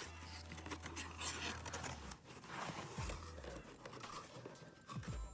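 Cardboard shipping box being handled: its flaps and insert rustle and scrape in short, irregular strokes as a boxed item is pulled out.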